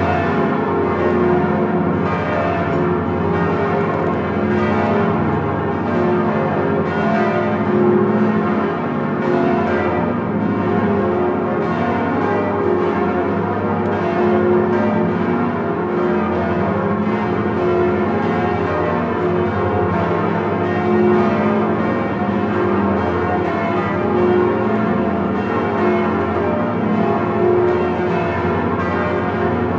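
The swinging bells of Notre-Dame de Paris cathedral rung together in full plenum, heard from inside the belfry: a dense, unbroken clangour of many overlapping bell strokes with long ringing tones and a deep hum beneath.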